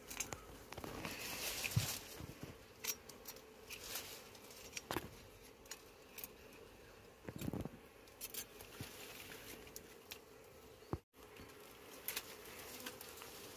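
Honeybees humming faintly and steadily at their combs, with scattered sharp clicks and scrapes from a knife working against the comb and rock.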